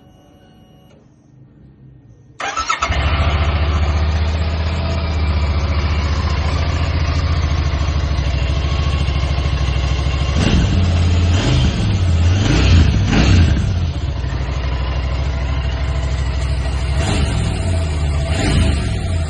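Royal Enfield Continental GT 650's 648 cc parallel-twin engine on its stock exhaust, started about two seconds in and then idling, with several quick throttle blips a little past halfway and two more near the end.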